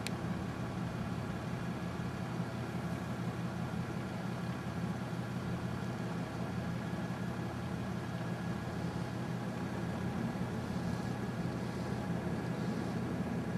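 Steady hum of a vehicle engine with road noise, as heard while driving.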